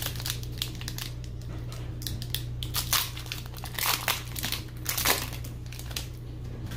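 Foil wrapper of a Pokémon Cosmic Eclipse booster pack crinkling and crackling as it is opened and handled, an irregular run of crackles with the loudest clusters in the middle and about five seconds in.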